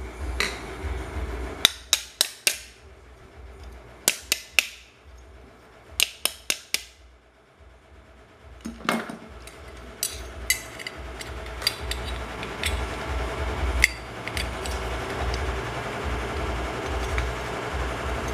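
Sharp metal taps in quick groups of three or four during the first seven seconds, as the fan motor's bushing is worked into its end housing. After that, steadier scraping and handling of metal motor parts with occasional clicks.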